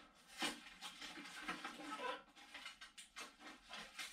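Faint rustling and scattered light clicks of hands handling a BMX bike frame on a work stand.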